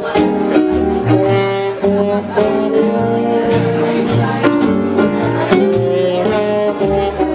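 Small jazz band playing live: an upright bass walks a line under a horn carrying the melody.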